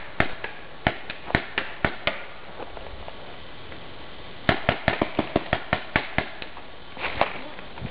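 Paintball markers firing: sharp pops, scattered at first, then a rapid string of about five or six shots a second in the middle, and a couple more near the end.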